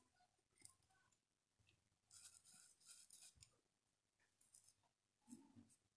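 Near silence, broken by a faint scratchy rustle of a paintbrush stroking paint onto cloth for about a second, a couple of seconds in, and a few fainter touches near the end.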